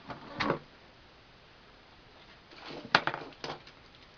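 Objects being handled and set down on a workbench tabletop. There is a brief rattle about half a second in, then a cluster of sharp knocks and clicks about three seconds in.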